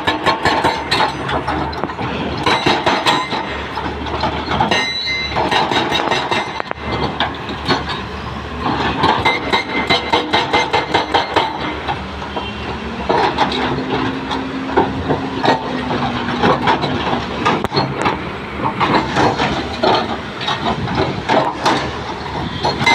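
Hydraulic breaker on a Hyundai 210 excavator hammering: runs of rapid, evenly spaced blows lasting a second or two, broken by short pauses, over the machine's steady running.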